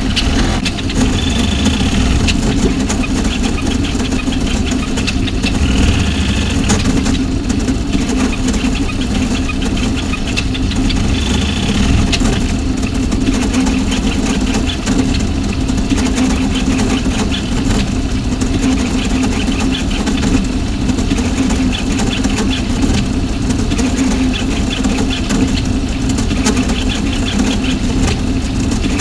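A VzBoT 3D printer running a print: a steady mechanical hum from its motors and fans, with brief high whines a few times as the toolhead moves.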